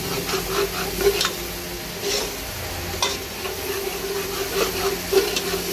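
Spiced onion-and-tomato masala sizzling as it fries in oil in a metal pot, with a spoon stirring through it and scraping the pot now and then.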